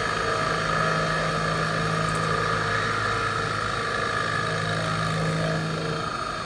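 Eumach VMC600 CNC vertical machining centre running as it mills holes in wood: a steady machine hum with a steady higher whine over it. The lower hum drops out about six seconds in.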